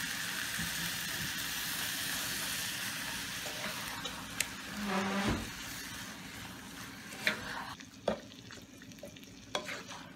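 Raw chicken pieces sizzling in hot oil with fried onions and masala, the sizzle dying down over several seconds as the meat takes the heat. A wooden spatula stirs them, knocking a few times against the pan.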